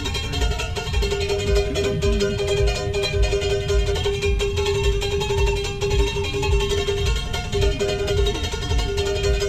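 A ukulele strummed in a fast, even rhythm, with a steady held note sounding over it that breaks off briefly a couple of times.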